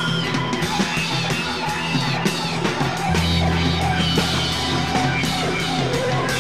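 Loud, heavy rock music with guitar, bass and drums, the bass shifting to a lower sustained note about three seconds in.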